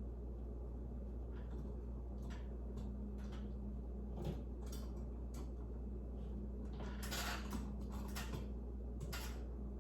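Scattered clicks and scrapes of hands working on a ceiling light fixture being installed, with a longer scraping rustle about seven seconds in, over a steady low hum.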